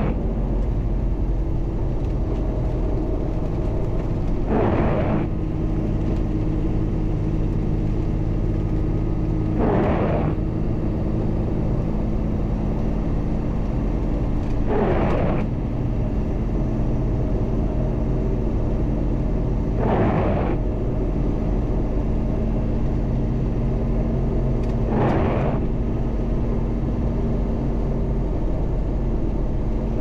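MAN LE280B 4x4 truck's diesel engine running steadily while driving. A brief rushing sound recurs about every five seconds over the engine hum.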